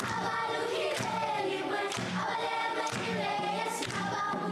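Background music with sustained choir-like voices over a steady beat.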